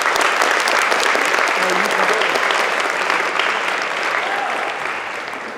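Crowd clapping. The applause comes in loud all at once and dies down over the last second or two.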